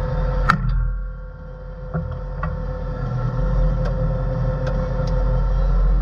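Diesel engine of a heavy earthmoving machine running steadily, heard from inside its cab, with a steady whine over the low rumble. A sharp click comes about half a second in, the sound eases briefly, and a few light ticks and rattles follow.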